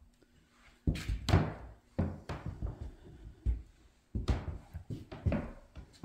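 A series of about six dull knocks and thuds at irregular intervals, like wooden doors, drawers or floorboards being handled or walked on.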